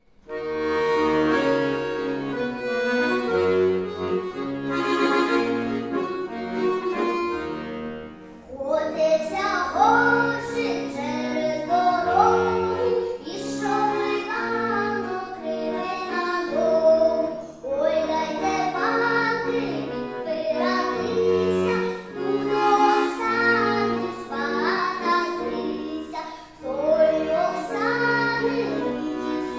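Accordion (bayan) playing an introduction of held chords to a Ukrainian folk song, then a child's voice singing from about nine seconds in, accompanied by the accordion, with short pauses between verse phrases.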